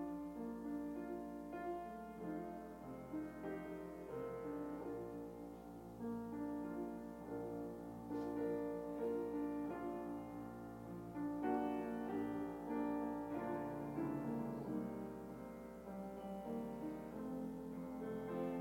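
Soft, slow piano music, held chords and single notes.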